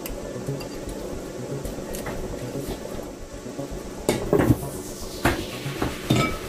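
Kitchenware being handled: several sharp knocks and clatters about four seconds in, and two more near the end, over a steady low hum.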